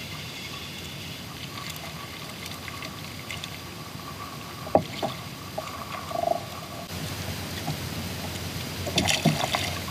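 Water lapping against a kayak hull with a little wind, and a few small knocks and clicks on the boat about five seconds in and again near the end.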